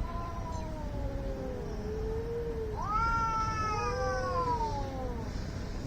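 Two domestic cats yowling at each other in a standoff before a fight. Long drawn-out wails slide down in pitch and overlap, and the loudest begins about three seconds in.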